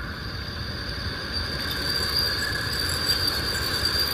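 Steady high-pitched insect chorus droning without a break, over a low background hiss of the recording.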